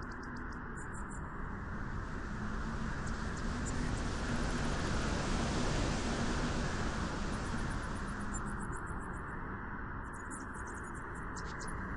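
Wind blowing on a beach as a steady rushing noise, gusting stronger through the middle and easing off again. Faint, high-pitched rapid chirps come through near the start and again in the last few seconds.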